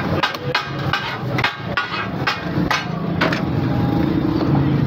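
Steel katakat spatulas clanging against a flat iron tawa griddle in a quick, irregular run of sharp metallic clanks that thins out after about three seconds, over a steady low hum.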